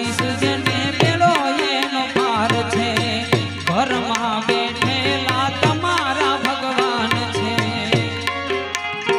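Instrumental interlude of Gujarati folk music: a tabla-style hand drum keeps a steady beat under a melody that glides and bends in pitch.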